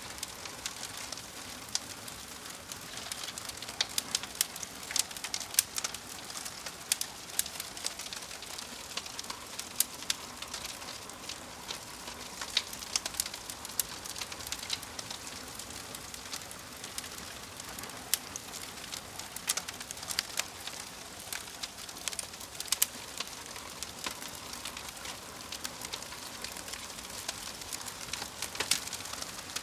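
Wood fire burning in a fireplace: a steady hiss with many sharp, irregular crackles and pops from the logs.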